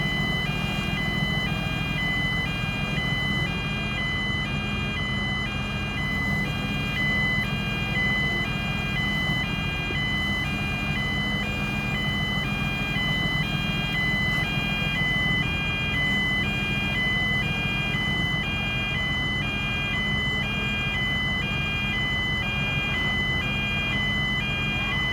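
Heavy construction machinery's electronic warning alarm beeping continuously in a two-tone pattern, alternating between two pitches, over the steady drone of a running diesel engine.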